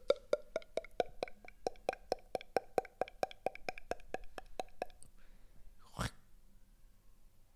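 Mouth-made foley: a fast, even run of tongue clicks, about five a second, whose hollow pitch rises and then holds level. The run stops about five seconds in and is followed by one louder breathy puff.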